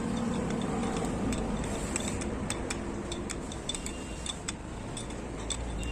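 Irregular light metallic clicks and clinks, a few a second at uneven spacing, over a steady low hum.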